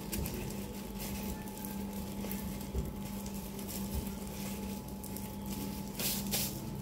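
Soft rustling and crinkling as stock cubes are unwrapped and crumbled over raw chicken, with a louder crinkle about six seconds in. A steady low hum runs underneath.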